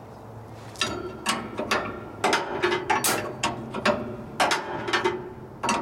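A hand wrench or ratchet working a threaded pull rod adjustment nut on a dock leveler, giving a run of sharp metallic clicks and clanks, about two or three a second, starting about a second in.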